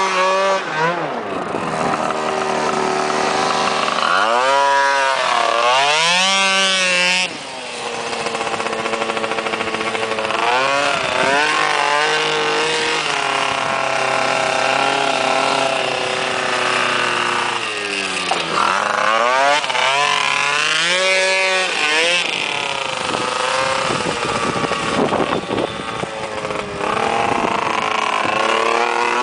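Engine of a 100cc Access racing ATV, its CVT fitted with a Dr. Pulley HiT clutch and SR1512 sliding rollers, revving hard as it is ridden. The pitch is held high, then falls off and climbs back up several times as the throttle is chopped and reopened.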